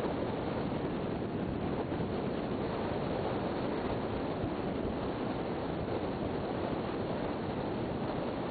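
Steady wind rushing and buffeting across the camera microphone, an even rumbling hiss with no distinct events.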